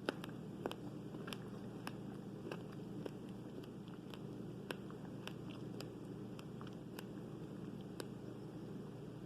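Someone chewing fresh fruit close to the microphone: irregular small wet clicks and squishes, about one or two a second, over a steady low background noise.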